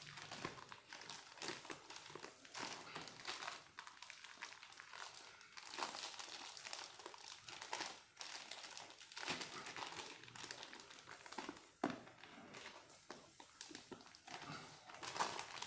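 Clear plastic film wrapper crinkling and rustling irregularly as a pack of yellow sticky insect trap sheets is unwrapped and the stuck-together sheets are pulled apart, with a few sharper crackles.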